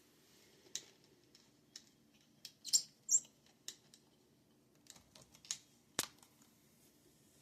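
Scattered light clicks and taps, irregular and a dozen or so, with a sharp single click about six seconds in.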